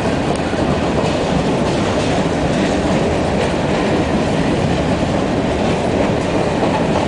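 Freight train's hopper cars rolling past close by: a steady rumble of steel wheels on the rails, with a clickety-clack as the wheels cross rail joints.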